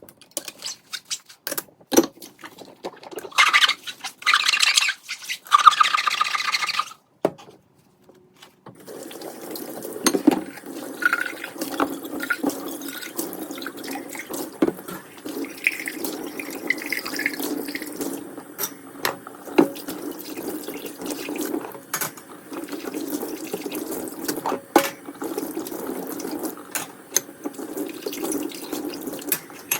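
Kitchen tap water running into the sink, first in a few short bursts, then, after a brief pause, a steady flow with many sharp clicks and knocks of dishes and utensils being handled.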